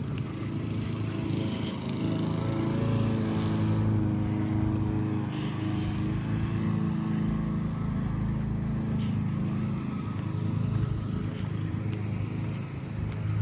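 Lawn mower engine running steadily, a continuous even-pitched drone.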